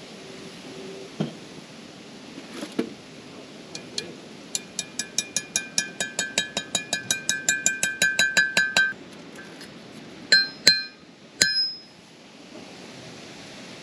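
Hammer striking a punch to drive a new wheel bearing race into a Toyota Hilux front hub with its brake rotor. A few light taps, then a fast run of about two dozen ringing metallic taps over four seconds, getting louder, and after a short pause three heavier blows as the race is seated.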